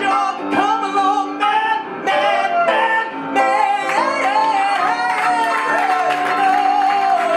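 A song: a singing voice over plucked guitar, the melody ending on a long held note that slowly falls.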